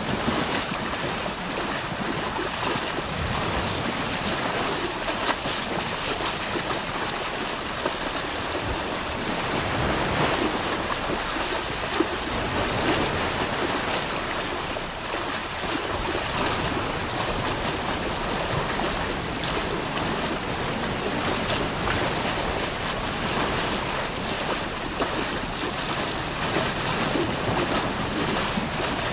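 River water pouring steadily over a low weir, a constant rushing hiss with small splashy flickers.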